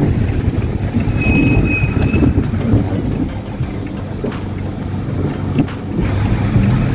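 Car driving, a steady low rumble of engine and road noise heard from inside, with a brief high whistle about a second in.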